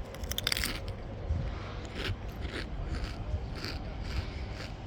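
Crunchy food being chewed close to the phone's microphone: a burst of crunching just after the start, then a steady run of short crunches, two or three a second, from about two seconds in. A low rumble runs beneath.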